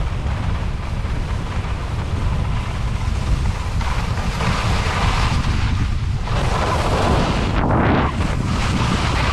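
Wind buffeting the microphone of a skier's body-worn camera while skiing downhill. About halfway through, the hiss of skis sliding on packed, groomed snow grows louder as speed builds.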